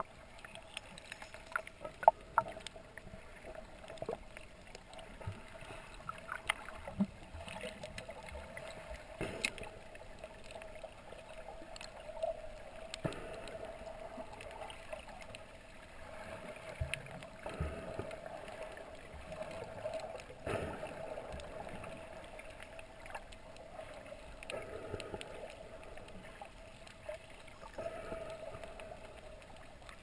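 Underwater sound through a GoPro's waterproof housing: a boat's engine carried through the water as a steady hum, with scattered clicks and knocks, the sharpest about two seconds in.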